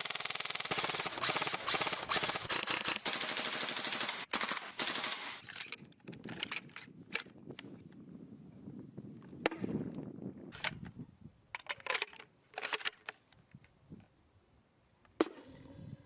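Airsoft gun firing a rapid automatic burst for about five seconds, then a scattering of single sharp shots and clicks with gaps between them.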